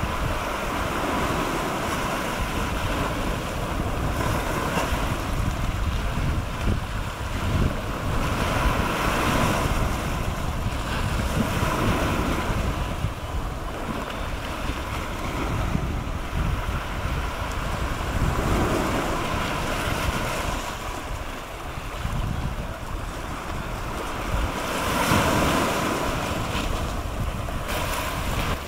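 Small sea waves washing in over rocks and a pebbly shore, swelling and easing every few seconds, with wind buffeting the microphone.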